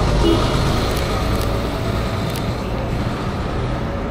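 Steady city street traffic noise: the low rumble of passing vehicles.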